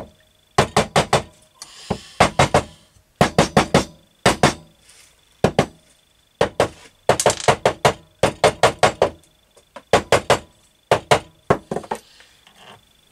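A small mallet tapping on the aluminium crankcase of a Husqvarna TC65 / KTM SX65 engine in quick runs of light taps, three to six at a time, over and over. The taps draw the two case halves together over the gearbox shafts and dowel pins.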